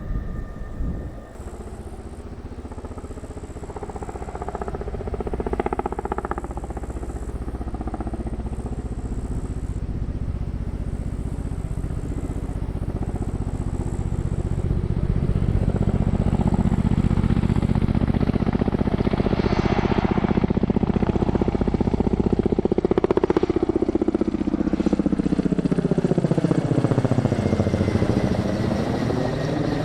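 Kamov Ka-27-family coaxial-rotor helicopter flying by, its rotor and turbine noise growing louder through the first half and then staying loud. Near the end a whooshing sweep falls and rises again as the helicopter passes closest.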